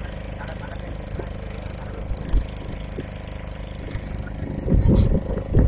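Boat's engine running steadily, an even mechanical hum, with a few short low thumps near the end.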